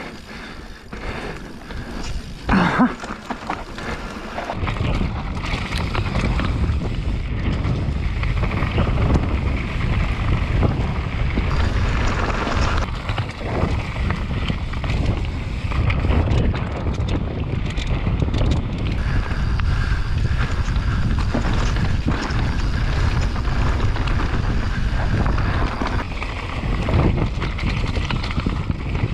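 Wind buffeting the microphone of a camera mounted on a Radon Jab enduro mountain bike riding down a dirt trail, with tyre noise and rattles from the bike over bumps. The rumble grows louder about four seconds in as the bike picks up speed and stays steady after that.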